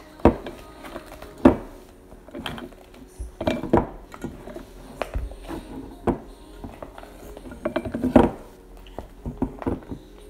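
Irregular knocks and clinks of a mixing bowl being handled and bumped while fluffy slime is worked in it, a few sharp knocks louder than the rest.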